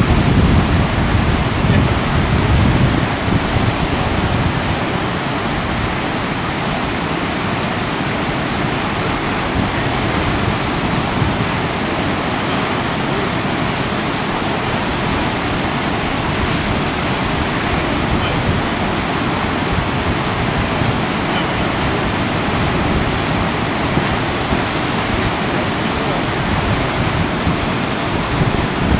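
River rapids rushing steadily around a breaking standing wave, with wind buffeting the microphone, most heavily in the first few seconds.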